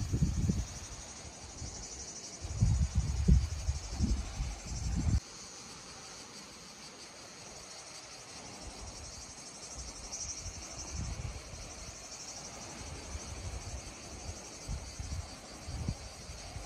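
Insects chirring steadily in a high, finely pulsing band. Over it, low rumbles come and go for the first five seconds and cut off suddenly. After that the chirring carries on with only faint low rumbles.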